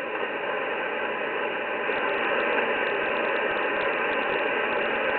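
HF transceiver's speaker hissing with band noise on the 20-metre band in upper sideband: an open channel with no station answering. A faint rapid crackle joins about two seconds in.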